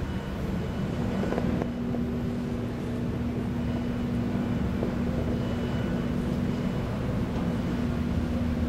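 Steady low rumble of the Royal Princess cruise ship under way, with a constant machinery hum.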